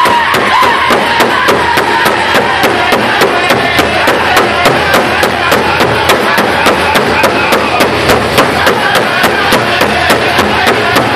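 Powwow drum group performing a fancy dance song: several drummers strike one large drum together at a fast, steady beat of about three strokes a second, while the men sing in unison over it.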